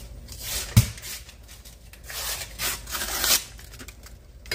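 Refrigerated biscuit-dough can being opened: a papery rip as the label is peeled, then one sharp pop about a second in as the spiral cardboard tube bursts along its seam, followed by a few seconds of cardboard tearing and rubbing as the tube is pulled apart. A brief metallic clink comes at the very end.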